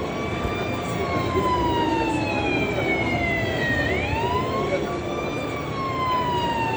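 Siren wailing: each cycle climbs quickly, then falls slowly and evenly for about four seconds before climbing again, with the next climb about four seconds in. It sounds over a steady noisy background.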